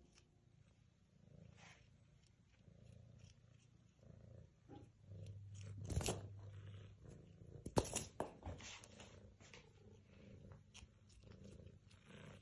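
Domestic cat purring, a low steady rumble, with a few sharp knocks and clicks about halfway through.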